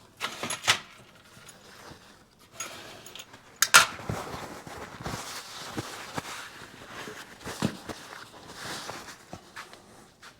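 Rummaging among tools and parts on a workbench: scattered clicks and clinks of metal and light handling noise, with one sharp clink a little under four seconds in.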